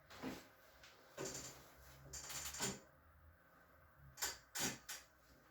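Several short, faint clicks and knocks with a brief rustle in the middle, ending with two sharp clicks close together near the end.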